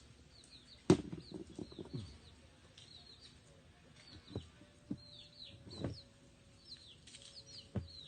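Small birds chirping over and over, with quick, high, falling chirps. Under them are handling noises: a sharp snap about a second in, then a rattle of small clicks, and a few more single knocks later, as the motor's wire connections are wrapped with electrical tape.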